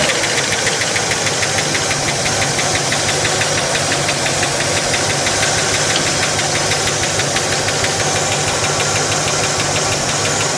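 1965 Buick Skylark Gran Sport's 401 cubic-inch Nailhead V8 idling steadily just after being started, its exhaust beating in a fast, even pulse.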